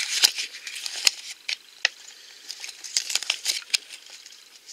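Thin plastic blind-bag wrapper crinkling as it is handled, with scattered small clicks and taps. The crinkling is busiest in the first second or so, then thins to occasional ticks.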